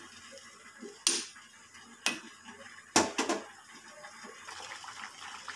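Steel spoon clinking against a stainless steel pot while stirring diced watermelon rind in boiling water. There are four sharp clinks, roughly a second apart, the last two close together, and the third is the loudest.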